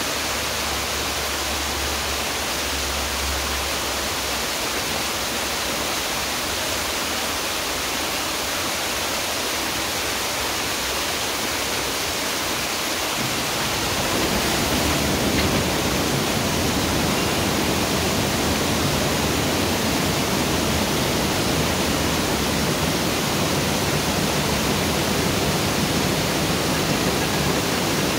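Water gushing through the paddles in the top gates of a broad canal lock, filling the lock chamber. The rush is a steady noise that grows louder and fuller about halfway through as the inflow increases.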